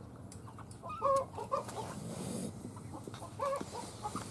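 Chickens clucking: a few short pitched clucks about a second in and again past the middle.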